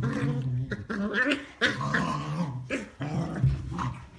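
Beagles play-fighting: a string of short play growls one after another, with a few sharper yelps mixed in.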